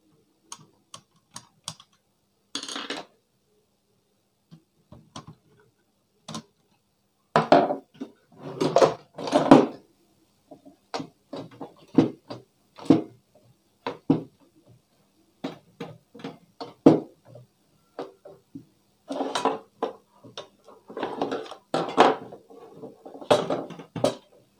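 Hands working on an opened DVD player: scattered clicks and taps from the plastic disc-loader mechanism, with clatter and scraping of a screwdriver and small metal tools against the metal chassis. The loudest clusters of scraping and knocking come about a third of the way in and again near the end.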